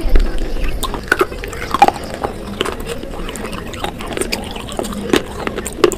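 Close-up wet crunching and chewing of clay pot pieces coated in a wet paste: irregular sharp crackles among wet mouth sounds.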